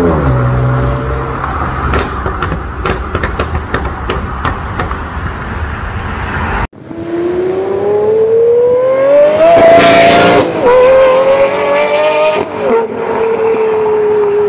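Sports car engine pulling away with a quick run of sharp exhaust pops and crackles between about two and five seconds in. After a sudden cut, a supercar accelerates hard: its engine note rises, drops at an upshift, rises again, then steadies.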